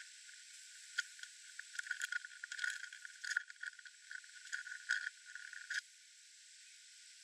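A small animal foraging on the ground: quick, irregular dry rustling and crackling clicks that start about a second in and stop near the end.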